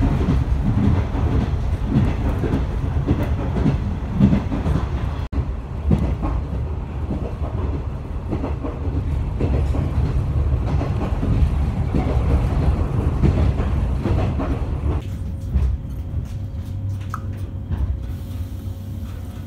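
Inside a JNR 455-series express-type electric train running on rails: a steady low rumble with scattered clicks from the wheels over the track. About 15 seconds in the running noise falls away and a quieter steady hum remains as the train slows at a station.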